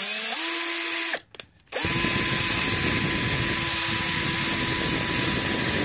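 Electric drill boring a hole into the rubber tread of a lawn tractor's rear tire. The motor spins up with a quick rising whine and runs about a second, stops briefly, then spins up again and runs steadily.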